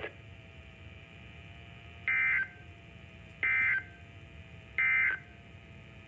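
Three short, identical warbling data bursts, about a second and a half apart, from a Midland NOAA weather radio's speaker: the SAME end-of-message code that closes the broadcast warning. Faint radio hiss fills the gaps between them.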